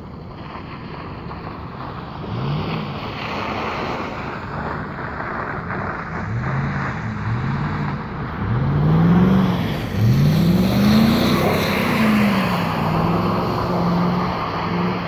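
A motor vehicle engine revs up again and again, its pitch rising in several short pulls, then holds a steadier note near the end, over a constant rushing noise.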